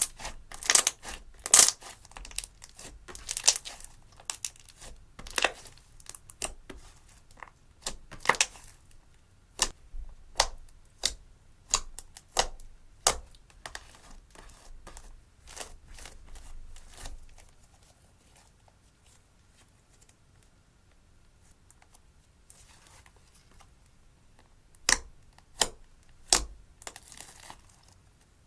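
Slime being worked by hand, giving off sharp popping and crackling clicks, many in quick succession at first, then sparser, with a pause and a few last loud pops near the end.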